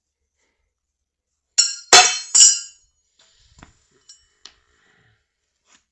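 Hammer striking steel three times in quick succession, each blow ringing like struck metal, followed by a few faint clicks.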